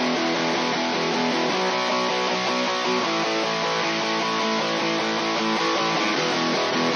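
Rhythm guitars strumming chords, a guitar bus from a rock mix played back through an analog 500-series stereo bus compressor. The level is even throughout, with no drums.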